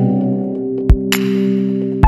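Electronic end-screen music: sustained synthesizer chords, with one deep drum hit and a cymbal splash about a second in.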